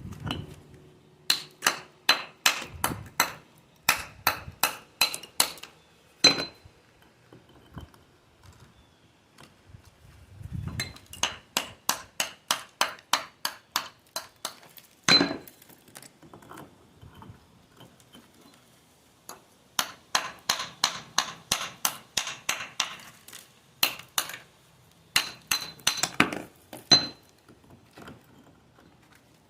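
A metal mason's tool tapping against stone in quick, sharp, ringing taps, about three a second, in three runs of several seconds with short pauses between them.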